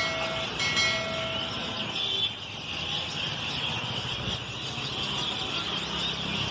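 A dense, steady chorus of many birds chirping together at an evening roost, over low traffic rumble; a vehicle horn honks twice in the first two seconds.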